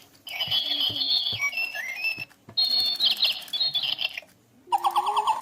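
Toy bird chirping in three bursts of trilled notes, with short pauses between; the last burst is a quick run of repeated notes.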